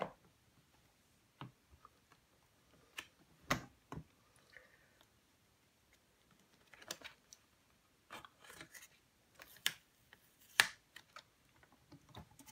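Light clicks and taps of a plastic stamp-positioning platform and stamp being handled: the hinged clear stamp plate lowered and lifted, and the stamp inked and pressed onto card, with a busier run of taps in the second half.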